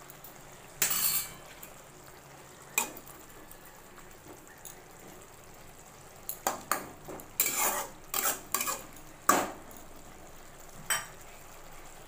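A metal spatula scrapes and knocks against a wok while stirring bitter gourd pieces in a thick sauce. There is a single stroke about a second in and another near three seconds, then a quick run of scrapes from about six to nine and a half seconds.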